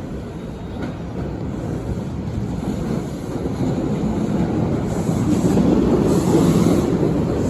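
LIRR M7 electric train running through the station, a steady rumble of wheels on rail that grows louder from about four seconds in, with wind on the microphone.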